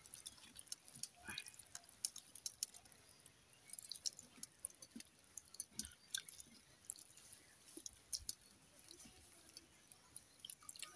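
Faint wet squelching and small clicks of fingers mixing and squeezing water-soaked rice (pakhala) in steel bowls.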